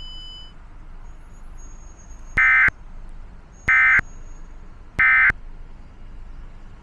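Emergency Alert System end-of-message signal: three short digital data bursts about a second and a quarter apart, marking the end of the alert, over a faint hiss.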